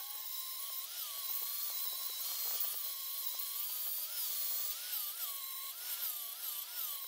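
Angle grinder with a 40-grit ceramic flat disc grinding the steel face of an anvil to flatten it. A steady high whine that wavers slightly in pitch, with a grinding hiss over it.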